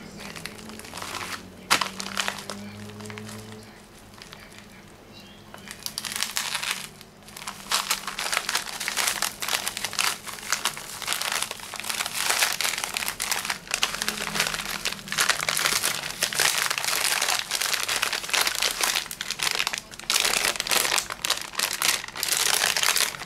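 Plastic courier mailer bag being slit with a utility-knife blade and opened by hand: a sharp click about two seconds in, then continuous crinkling of plastic from about six seconds in as the bag is pulled open and the cables' plastic packet is drawn out.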